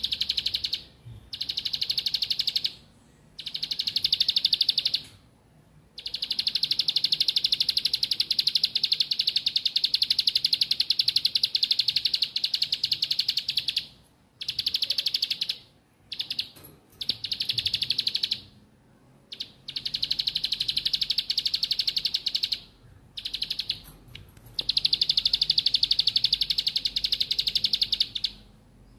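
Plain prinia (ciblek) singing a rapid, high, buzzing trill in repeated bouts separated by short pauses. The bouts range from under a second to one long run of about eight seconds.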